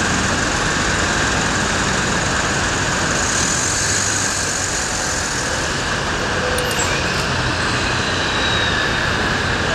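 Steady road traffic noise from a busy multi-lane city avenue: cars and a bus running by in a continuous, even din.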